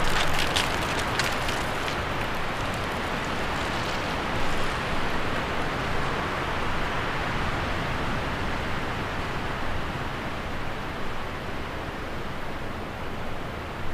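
Steady rushing noise with no distinct source. It opens with a patter of crackles that thins out over the first two seconds, and the high hiss dulls after about five seconds, leaving a duller even rush.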